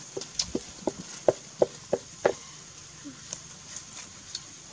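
A quick run of about eight sharp knocks in two and a half seconds, each a short hard tap, followed by a few fainter ticks.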